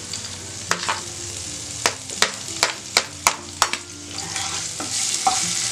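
Grated ginger and garlic sizzling in hot oil in a nonstick pan, with about seven sharp clinks of a steel spoon tapping in the first few seconds. The sizzle grows fuller near the end.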